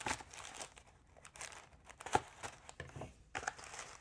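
Coin packaging being handled and unwrapped: irregular crinkling and rustling with small clicks, and one sharper tap about two seconds in.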